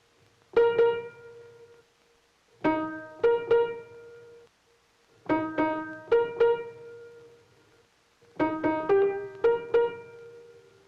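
Piano playing short phrases of two or three struck notes or chords that ring and fade, four times with pauses of about a second between them, over a faint steady held tone.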